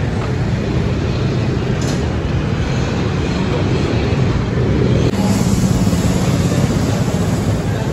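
Steady low rumble of running vehicle engines, growing slightly louder with a hiss about five seconds in.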